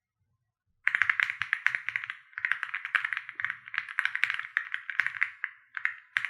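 Fast typing on an Akko MOD007 PC polycarbonate-case mechanical keyboard: a dense, irregular run of key clicks starting about a second in, with brief pauses twice.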